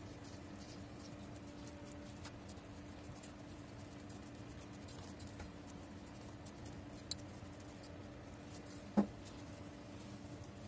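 Oiled hands pressing and patting pizza dough out in a metal pan: soft, faint rubbing and patting with scattered small ticks over a faint steady hum, and one short thud near the end.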